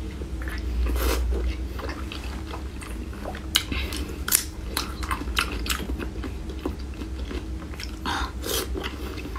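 Close-miked eating: biting into and chewing soft glazed pork belly, with wet smacking and squishing mouth noises and a string of sharp clicks in the middle.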